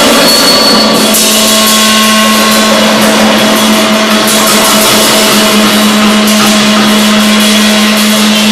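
Loud experimental noise music: amplified drums and metal percussion (cans, cymbal) run through echo and delay into a dense wash of noise with scattered hits. A steady low drone holds underneath from about a second in.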